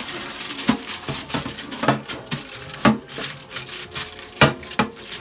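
Kitchen dishes and utensils clattering: a string of irregular sharp knocks and clinks, about a dozen over five seconds.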